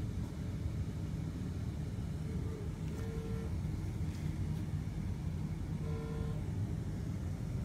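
Steady low background rumble, with a short electronic beep twice, about three seconds apart.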